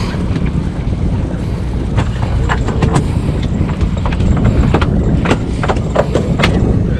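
Steady low rumble of a boat running, with wind on the microphone, under a string of irregular sharp clicks and knocks that come thickest in the middle of the stretch.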